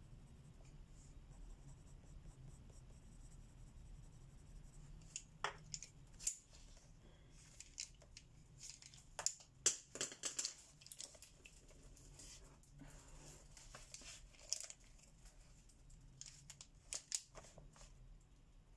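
Colouring on paper: short, scratchy pencil strokes come in irregular bursts starting about five seconds in, over a faint low hum.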